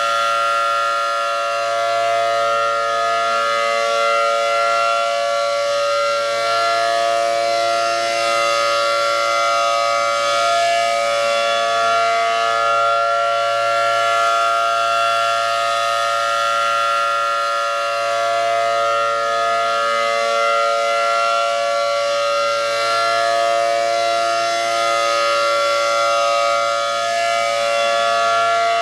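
Mobile warning siren sounding a test alert: a loud, steady chord of several tones held at one pitch, with only slight swells in level.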